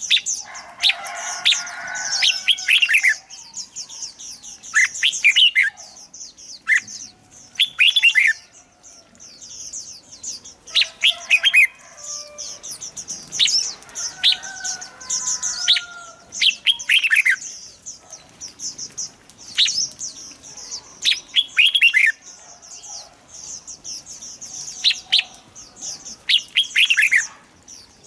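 Red-whiskered bulbuls singing: short whistled phrases about every one to two seconds, over a steady high-pitched twittering.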